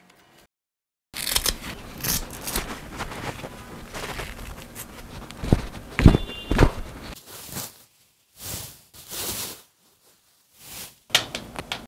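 Rustling and scraping as gloved hands pull a woven nylon watch strap out of its box tray and handle it, with a sharp knock about six seconds in, then a few short rustles as the strap is flexed.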